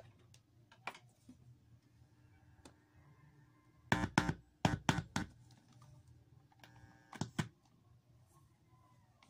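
Sharp handling clicks and taps of plastic and a metal plug on a Panasonic SL-S310 portable CD player as a 3.5 mm audio plug is brought up and pushed into its side jack: a quick cluster of about five clicks about four seconds in, and a pair of clicks a little after seven seconds.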